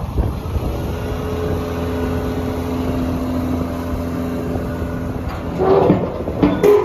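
John Deere 950J bulldozer's Liebherr diesel engine running steadily, with a louder clattering rush near the end.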